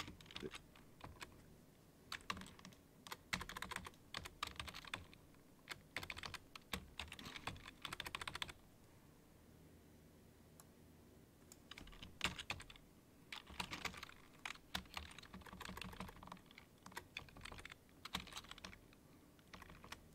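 Faint typing on a computer keyboard in runs of quick keystrokes, with a pause of about three seconds in the middle.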